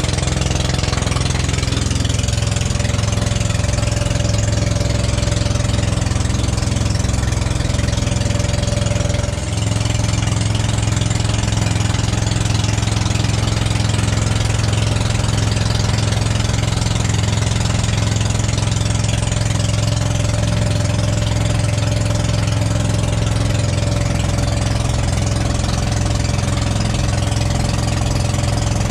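Outrigger fishing boat's engine running steadily under way, a constant low drone, dipping briefly about nine seconds in before carrying on.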